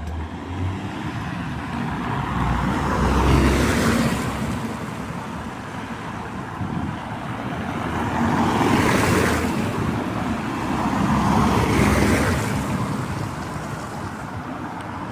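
Cars passing on a rain-wet street, their tyres hissing as each one swells up and fades away, three times in a row, with some engine rumble under the first.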